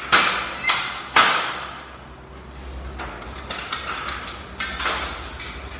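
Aluminium folding ladder knocking and clattering as it is handled and climbed: three sharp knocks in the first second or so, then lighter knocks a few seconds later.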